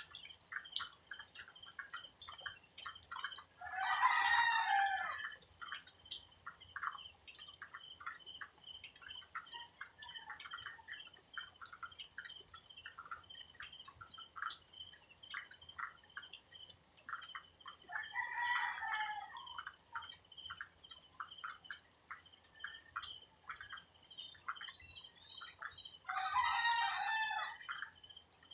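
Rooster crowing three times, each crow about a second and a half long, over a steady high trill and a scatter of small ticks.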